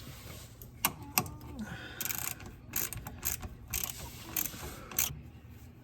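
Hand-tool and metal-part clicks, then a run of short rasping, ratchet-like strokes about two a second that stop abruptly near the end, as the fuel pump and its hoses are worked into place.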